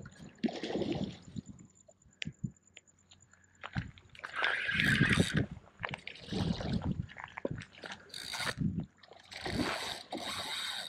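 A large snook splashing and thrashing at the water's surface in irregular bursts while it fights on the line, the loudest burst about halfway through.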